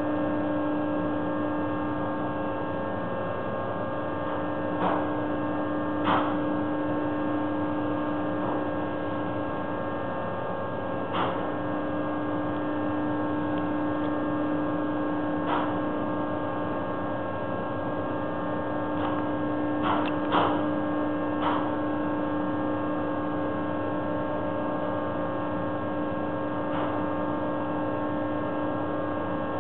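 Truck dumper's machinery running with a steady hum and whine, its strongest low tone dropping out briefly about a third of the way in, while several short sharp knocks sound at irregular intervals.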